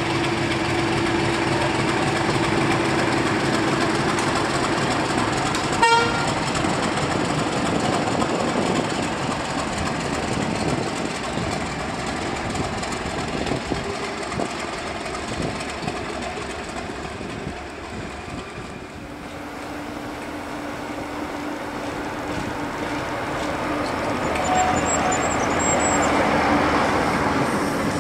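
British Rail Class 31 diesel locomotive running light with its engine running steadily, its horn giving one short toot about six seconds in. Later a second diesel locomotive hauling coaches draws near, its engine and the train's running noise growing louder toward the end.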